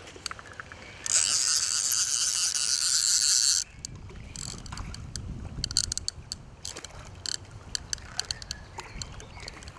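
Fly reel's ratchet drag spinning fast as a hooked trout takes line: a loud steady buzz starting about a second in and stopping suddenly after about two and a half seconds. After it, the trout splashing at the surface, with scattered clicks.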